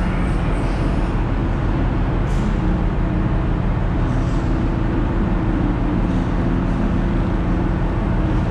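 Steady loud machinery drone with a low hum running underneath, and a few faint short hisses now and then.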